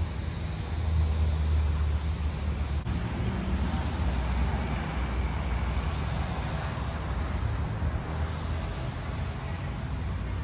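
Steady vehicle noise with a continuous low rumble.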